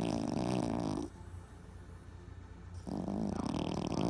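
Boston terrier snoring in its sleep: one long snore ends about a second in, and the next begins about three seconds in, each lasting well over a second.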